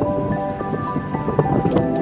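Background music: sustained notes overlapping and changing every half second or so, with light tapping beneath.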